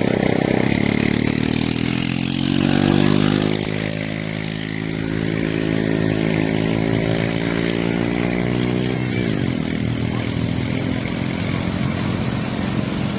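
An engine running under load, its pitch rising steadily for about eight seconds, then dropping suddenly about nine seconds in and running on lower, over a steady rushing noise.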